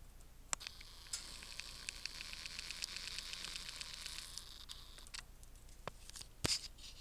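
Fine, rapid ticking and rustling from a Yorkshire canary in its cage, a run of small clicks over a soft hiss lasting about four seconds, with a few sharper single clicks, the loudest near the end.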